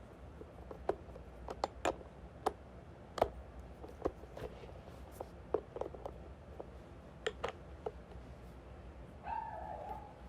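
A run of light, irregular clicks and taps, then near the end a short dog whine, one pitched cry that dips slightly before it stops.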